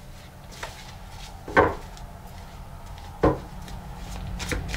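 Two dull knocks about a second and a half apart, over a faint steady hum, with some light rustling near the end.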